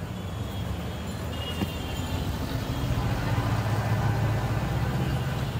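Street traffic: a motor vehicle's engine running close by, with a low hum that grows louder around the middle and eases off slightly near the end.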